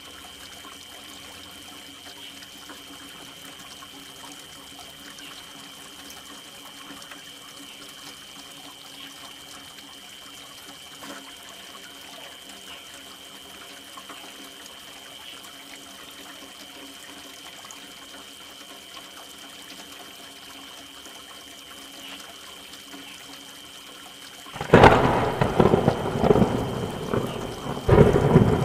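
Soft, steady rain, then about 25 seconds in a sudden loud thunderclap from a close lightning strike that rumbles on, with a second loud burst of thunder about three seconds later.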